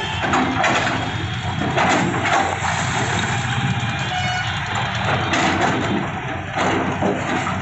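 Heavy diesel engines running steadily, from the Komatsu excavator at work and a passing container truck, with several sharp crashes of brick and masonry breaking and falling during demolition.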